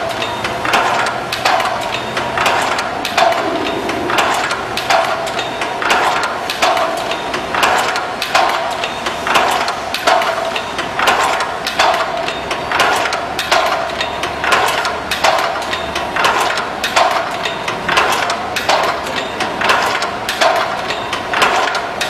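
Iron-chain-making machine running, with a rhythmic clatter of metal strikes repeating about once a second over a steady ringing hum.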